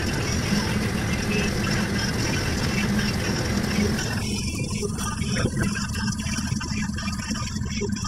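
Steady low drone of a sailing catamaran's engine running under way, with a rushing hiss over it that drops away about four seconds in.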